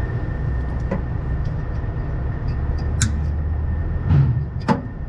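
A few sharp clicks and a light knock over a steady low hum: red-handled cutters snipping the zip tie that holds the Gene Berg throttle linkage in service mode, so the linkage and its return spring come free against the fan shroud.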